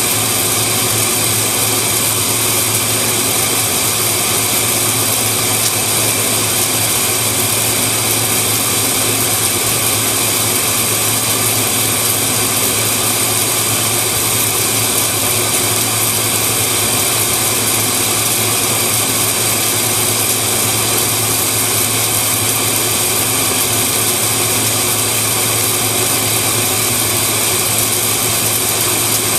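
Automated submerged arc welding rig running: a steady, unchanging hum and hiss from the sub-arc welder and the flux-recovery vacuum drawing granular flux back up its hose as the weld bead is laid.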